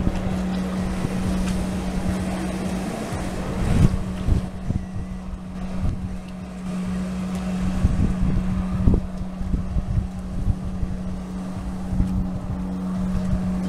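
Jet ski engine pumping water up the hose to a flyboard, a steady drone that holds one pitch, with wind buffeting the microphone in gusts.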